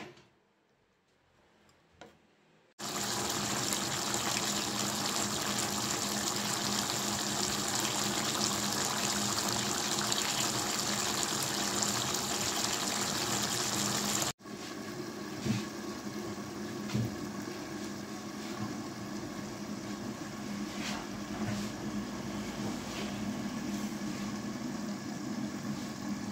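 Chicken and papaya curry sizzling and bubbling hard in a pan, a loud steady hiss that starts suddenly about three seconds in after a few light clicks. About halfway through it cuts to a quieter simmer with scattered pops.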